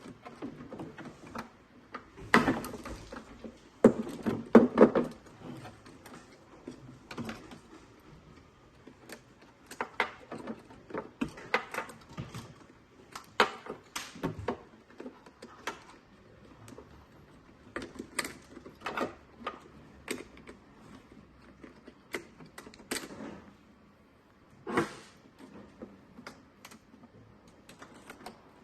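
Irregular clicks, taps and knocks of plastic parts and fittings of a robot vacuum base station's water pump assembly being handled by hand, with a cluster of louder knocks a few seconds in.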